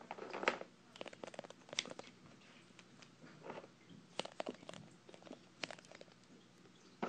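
Handling noise of small plastic toys and their accessories: irregular crinkly clicks and rustles in short clusters, the loudest about half a second in.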